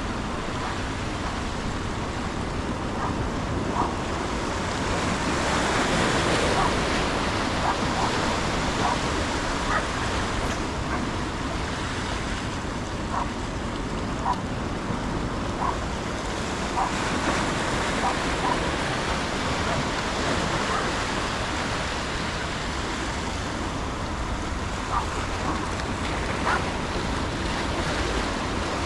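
Steady rush of river water with wind buffeting the microphone, and faint short high blips now and then.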